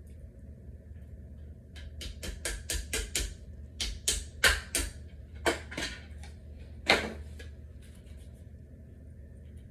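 Flat-pack dresser parts being handled: about a dozen sharp clicks and knocks over some five seconds, the loudest about seven seconds in, as small metal and plastic fittings are fitted into particleboard drawer panels. A steady low hum lies underneath.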